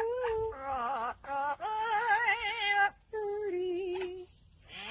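A bird making a series of drawn-out, wavering, voice-like calls in phrases of about half a second to a second, with short breaks between them and a pause near the end.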